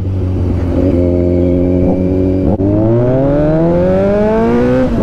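Kawasaki Z900's inline-four engine through an aftermarket exhaust under way. It holds a steady note, dips briefly about two and a half seconds in, then pulls up with a steadily rising note that drops sharply at the end, as on an upshift.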